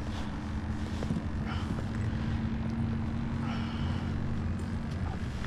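Steady low mechanical hum with one held tone that stops about five seconds in.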